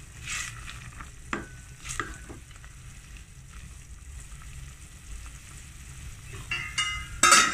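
Wooden spoon stirring boiling chicken and vegetable soup in a stainless steel pot, over a steady bubbling, with a few sharp knocks of the spoon against the pot in the first couple of seconds. About seven seconds in comes a loud, ringing metal clatter.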